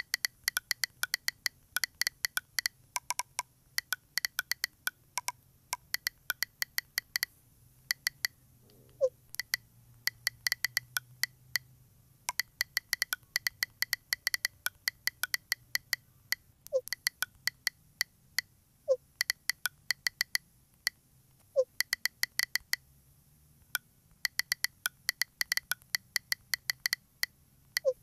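Smartphone touch-keyboard key-press clicks in fast runs of typing, with five short pops between the runs, one each time a chat message is sent.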